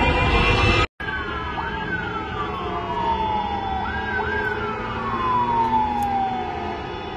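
Siren wailing: about a second in, the tone jumps up and falls slowly, then jumps up and falls slowly again, over a steady hum of traffic. The first second, before an abrupt cut, holds steady tones and louder street traffic noise.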